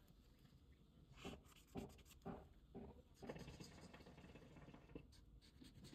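Pink colored pencil scratching on sketchbook paper in quick, faint back-and-forth shading strokes. The strokes are strongest from about one to three and a half seconds in.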